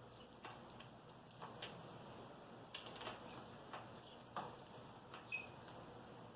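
Faint, irregular light clicks and taps, about ten of them, from hand work pushing handlebar riser adapters into their mounts.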